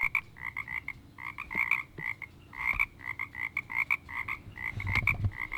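A frog calling: a quick series of short, pitched notes, several a second, in runs with brief pauses between them.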